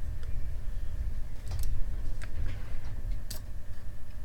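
A few light clicks and ticks from an opened laptop hard drive as its platters and head arms are moved by hand, over a steady low rumble; a bent read/write head arm is catching on a platter.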